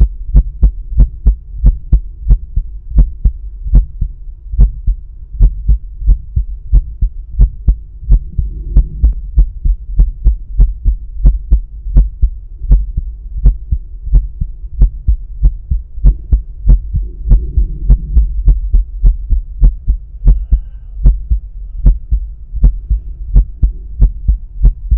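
A man's heartbeat heard through a stethoscope placed at the pulmonic area of the chest: a steady, regular run of lub-dub pairs of thumps. A faint steady hum sits beneath it.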